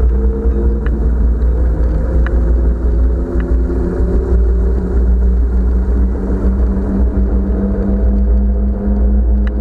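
Zaxboard Avatar electric scooter riding fast through heavy rain and standing water: a steady deep rumble of wind on the microphone and the rush of water spray, with a motor whine that rises slowly in pitch.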